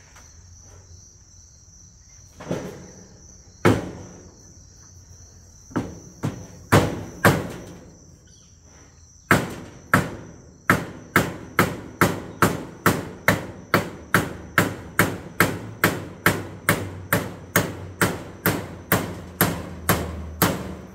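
Hammer driving nails into a wooden roof frame: a few scattered blows, then from about nine seconds in a steady run of strikes about two a second. A steady high insect drone runs underneath.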